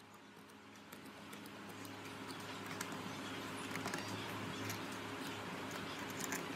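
Steel C-clamp screw being turned by its T-bar handle, with faint scattered clicks and rubbing of metal and wood, over a steady low hum that swells during the first few seconds.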